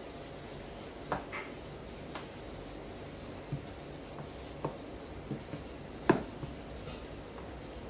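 Wooden rolling pin worked over sheets of noodle dough on a wooden board, giving irregular light knocks of wood on wood, the loudest about six seconds in.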